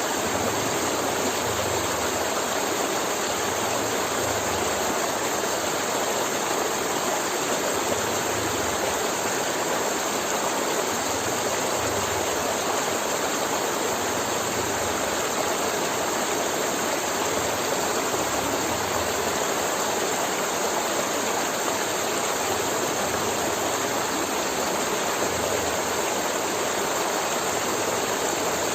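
River water flowing, a steady, unbroken rushing.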